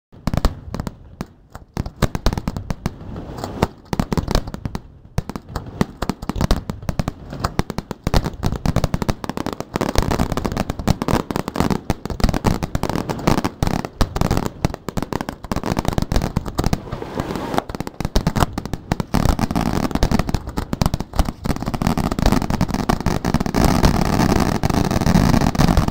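Aerial fireworks display: many shell bursts bang in quick succession with crackling. The bangs grow denser and louder in the second half, merging into a near-continuous barrage.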